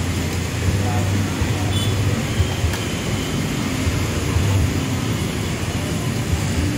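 Steady low rumble and rushing hiss of the gas burner heating a large pot of boiling water for noodles.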